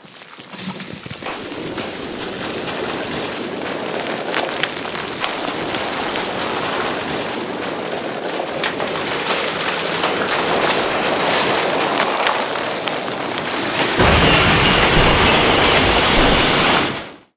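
Dense clatter of many wooden planks tumbling and knocking together, a sound effect for a collapsing block tower, building slowly in loudness. About fourteen seconds in it turns louder and fuller with a deep rumble underneath, then cuts off suddenly near the end.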